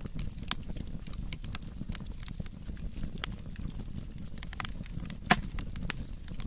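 Wood fire crackling, with irregular sharp pops and snaps over a steady low rumble of the flames, and one louder pop about five seconds in.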